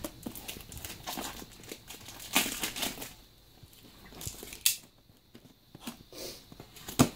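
Cardboard shipping box and its packaging being handled and pulled open: scattered rustling, crinkling and tearing, with a single sharp knock about two-thirds of the way in.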